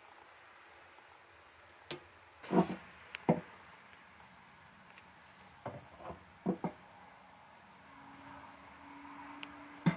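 A handful of short wooden knocks and clicks as a polished ball-peen hammer is handled and set against a plywood surface, the loudest two to three seconds in and another at the very end.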